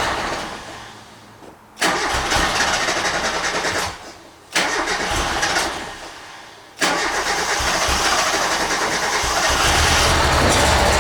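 A 1991 Mazda Miata's 1.6-litre four-cylinder engine catching and dying away within about two seconds, twice, then catching again about seven seconds in and running on. It is an engine that starts but won't idle.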